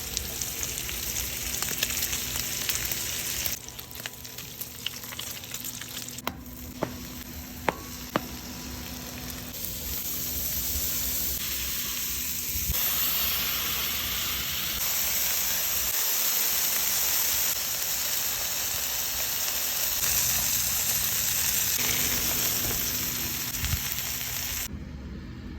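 Bacon and burger patties frying on a hot flat-top griddle: a steady sizzle that steps up and down in level every few seconds, with a few sharp clicks between about 4 and 8 seconds in.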